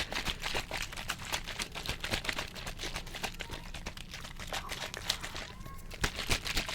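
Rapid, irregular light tapping and clicking close to the microphone, typical of ASMR fingernail tapping on a textured object.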